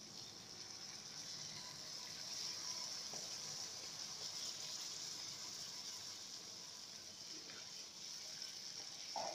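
Chicken and potato stew simmering in an aluminium pot, a steady faint hiss, while raw rice is poured into it from a plastic bowl.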